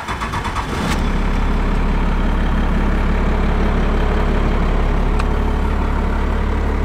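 Compound-turbocharged Cummins diesel in a Dodge Ram being started: it cranks for under a second, catches about a second in, and settles into a steady idle.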